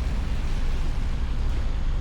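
Car driving through snow: a steady low rumble of engine and road with an even hiss of tyres and wind.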